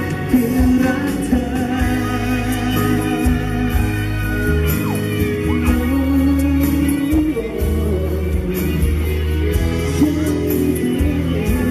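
A man singing a Thai pop song live into a handheld microphone over backing music with a strong bass line.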